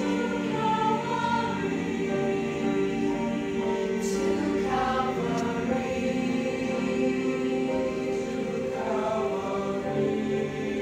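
Mixed-voice choir singing long-held chords, with the upper voices moving over sustained lower notes.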